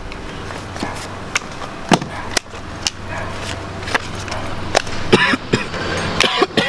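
Playing cards slapped and snapped down onto a table during a card game: a string of short, sharp clicks at irregular intervals over a steady low hum.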